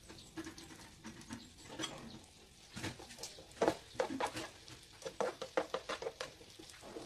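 Slotted plastic spatula stirring chicken frying in oil in a nonstick pan. From about three seconds in it taps and scrapes against the pan in a quick run of clicks, several a second.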